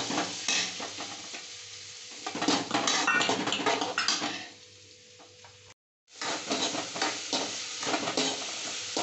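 Diced potatoes sizzling in hot oil in a kadai, with a steel spoon scraping and clicking against the pan as they are stirred. The sound drops low about halfway, cuts out for a moment, then resumes.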